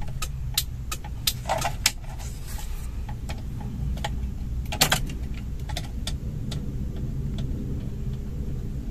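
Hazard-light flasher relay of a 1987 Daihatsu Charade ticking steadily, about two to three clicks a second, over a low steady hum.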